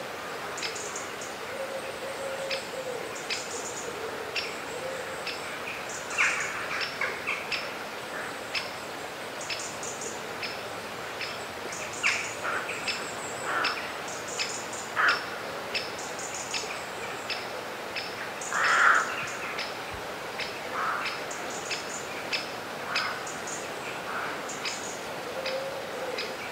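Birds chirping: many short, high chirps repeat throughout, with a few louder calls standing out.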